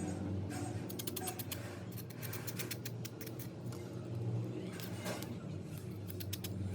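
Bursts of rapid small clicks and ticks from hand tools working on a phone, over a steady low hum.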